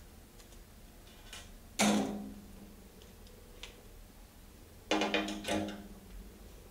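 Metal hand tools and derailleur parts set down on a steel workbench. There is one sharp clank about two seconds in and a quick cluster of clanks around five seconds, each leaving the bench ringing briefly at a low pitch. Faint ticks of hex-key and small-part handling come in between.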